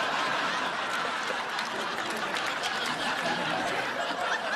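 Live studio audience laughing and applauding: a steady crowd noise that starts suddenly just before and holds without a break.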